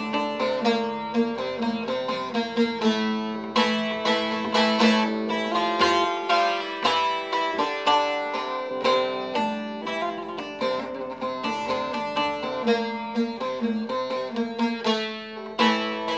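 Instrumental interlude of a Turkish folk song, with no singing: a plucked string instrument plays a quick, busy melody over a sustained low note.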